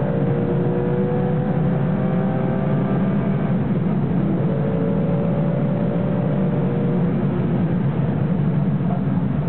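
Porsche 996 GT3 RS race car's flat-six engine heard from inside the cabin, accelerating down a straight. The engine note rises slowly, breaks off about four seconds in as at a gear change, then rises again. Heavy road and cabin drone runs underneath.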